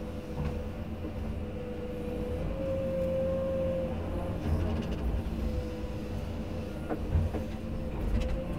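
Komatsu PC210 excavator's diesel engine and hydraulics working under load, heard from inside the cab, with a steady whine that strengthens and fades as the bucket digs beside a tree stump. A sharp knock about seven seconds in.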